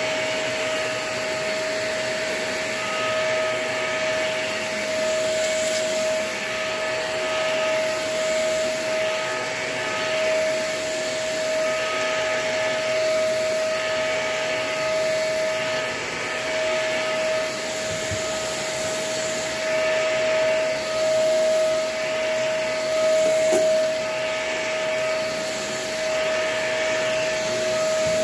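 Vacuum cleaner with a very dirty, clogged filter running continuously: a steady motor whine over rushing air, the airflow noise swelling and fading about every second and a half.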